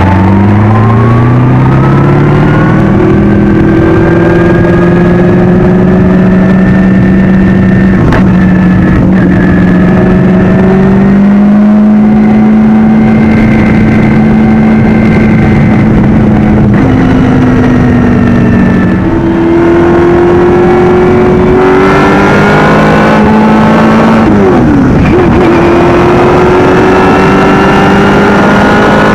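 Shelby Can-Am race car's engine heard at close range from on the car: revs climb as it pulls away, then hold steady for a long stretch. In the last third it accelerates again, with abrupt drops in pitch at the gear changes.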